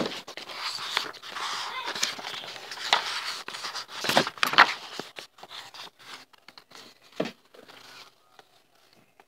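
Magazine pages being turned and handled: irregular paper rustling and sliding, with sharp crackles of the pages. It dies down for the last couple of seconds.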